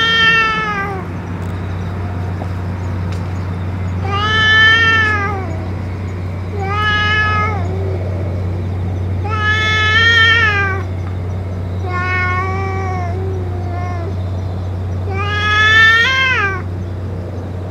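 A cat meowing: six long, drawn-out meows, a few seconds apart.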